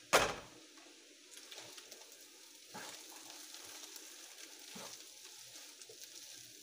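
A glass pan lid clatters down onto the stovetop once, sharply, just after the start; then diced potatoes and ground beef sizzle steadily in the frying pan as they are stirred with a spatula, with a couple of light knocks of the spatula against the pan.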